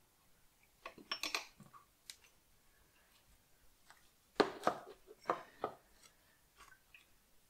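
Hands handling parts in a car's engine bay: a few light clicks, then a cluster of about four sharper knocks a little past halfway.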